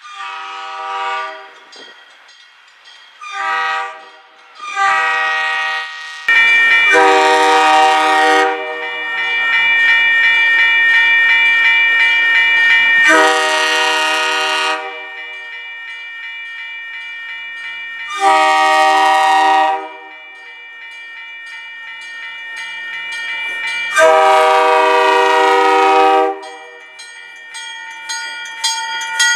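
MBTA commuter rail cab-car air horns sounding a multi-note chord: three short blasts in the first six seconds, then a string of long blasts, the later ones warning for a grade crossing as the cab car approaches and passes. A crossing bell rings steadily between and after the blasts.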